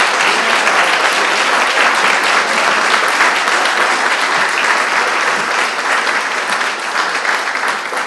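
Audience applauding: many hands clapping steadily together, starting to die down near the end.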